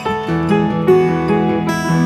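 Laid-back instrumental country track from a stock music library, led by acoustic guitar.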